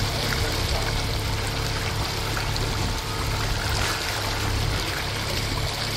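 Water rushing and splashing along a sailboat's hull as it motors slowly, over a steady low engine hum.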